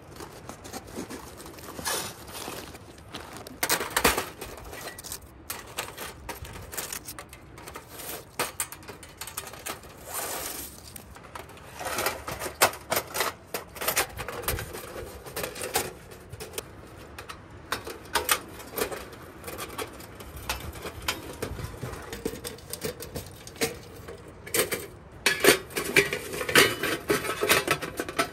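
Thin titanium sheet-metal panels of a folding wood stove clinking, rattling and knocking together as it is taken out of its bag and unfolded, in irregular bursts of light metallic clanks, busiest about halfway through and again near the end.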